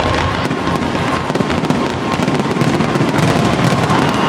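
Fireworks display going off: a dense, rapid run of bangs and crackles with no break.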